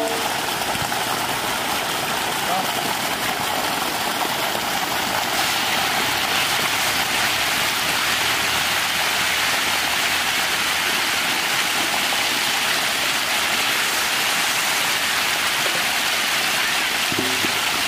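Steady, dense splashing and rippling of water from thousands of baby hybrid magur catfish churning at the pond surface as they feed.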